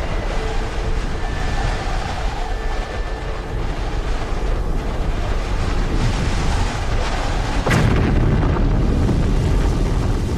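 Sound-effect rumble of a cataclysmic impact between two planets: a continuous deep rumble, broken about three-quarters of the way through by a sudden crack, after which the rumble grows heavier.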